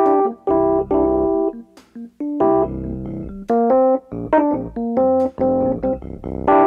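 Keyboard music: piano-like chords struck one after another, each held briefly, with short gaps between them.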